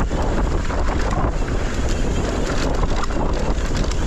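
Wind rushing over the microphone during a fast mountain-bike descent on a Yeti SB165, with the tyres on loose, dry dirt and a steady clatter of small knocks from the bike over rough ground.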